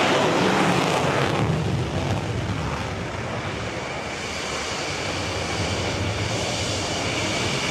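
F-35A fighter's single jet engine in afterburner on its takeoff roll and climb-out: a steady rushing jet roar, loudest in the first second or so and then easing slightly.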